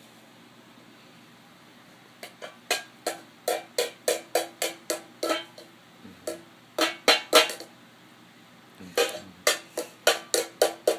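Sharp, ringing taps struck in quick runs of about three a second: three runs, with short pauses between them.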